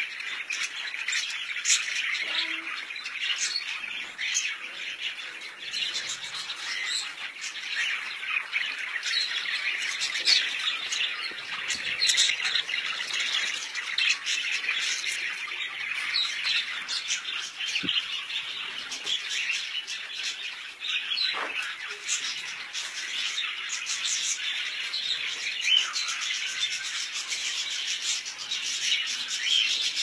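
A flock of caged budgerigars chattering and squawking: many short, high calls overlapping without pause.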